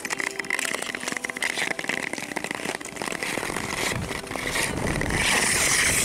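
Ice skate blades gliding and scraping over clear lake ice: a steady hiss scattered with small scratches, growing louder and hissier near the end.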